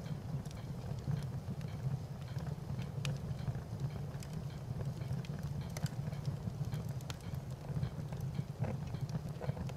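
Wood fire crackling: a steady low rumble with scattered, irregular sharp pops and snaps.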